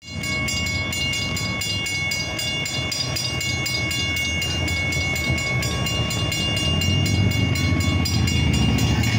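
Railroad grade-crossing warning bells ringing in a rapid, even rhythm as the crossing gates come down. A low rumble builds beneath them near the end.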